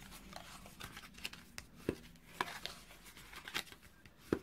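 Scored cardstock being folded and creased with a bone folder: faint, irregular paper crackles and rubs, with a couple of sharper taps, one about two seconds in and one near the end.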